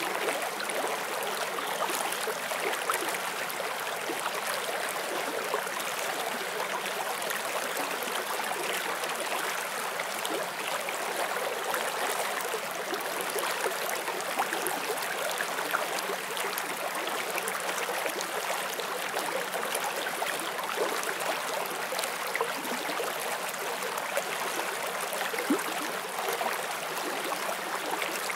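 Shallow forest stream running over stones: a steady rushing babble with many small splashes and gurgles throughout.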